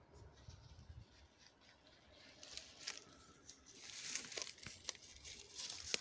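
Footsteps rustling and crackling through dry grass and fallen leaves, faint at first and getting louder from about two seconds in.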